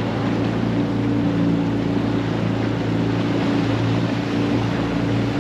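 Small fishing boat's motor running steadily.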